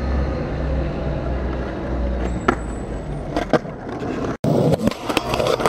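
Skateboard wheels rolling over asphalt with a steady low rumble and a few sharp clicks. About four seconds in, a louder stretch of the board clacking with several sharp knocks.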